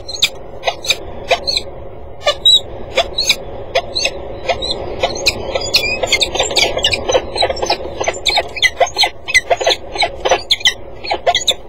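Peregrine falcons giving a rapid series of short, sharp squealing calls, several a second, during a prey handover between the male and female at the nest. The calls sit over a steady background hum.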